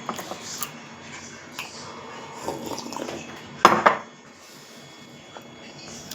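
Cutlery clinking and scraping against a plate during eating, with two sharp, loud clinks a little after halfway.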